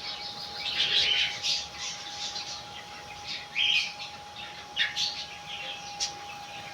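Small pet birds chirping repeatedly in short, irregular calls, over a faint steady hum.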